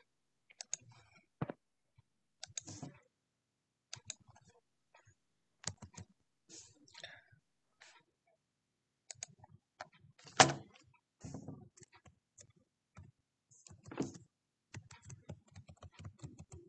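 Irregular light clicks and soft knocks, with one louder knock about ten and a half seconds in.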